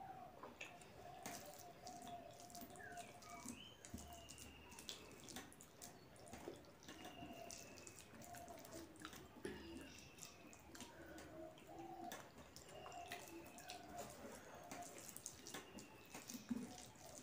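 Faint, irregular wet clicks and squishes of fingers mashing and mixing soft, starchy rice with mashed vegetables on a steel plate.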